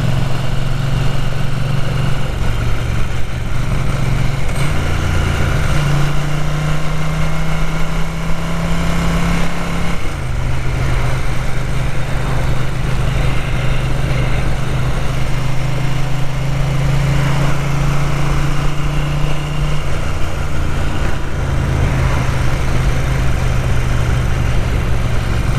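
Ducati 900 SS air-cooled L-twin engine running under way, its pitch stepping up and down a few times as the rider changes speed. The bike has carburettor trouble that makes it run unevenly and keeps it from holding a comfortable engine speed.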